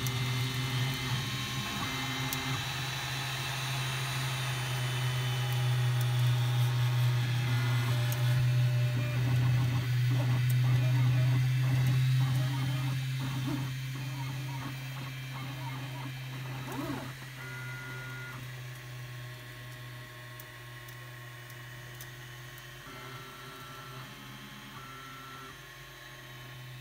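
Desktop FDM 3D printer printing: a steady low hum with shifting high whines that jump in pitch every second or two as the print head and bed move, and a patch of quick ticking midway. Fainter in the second half.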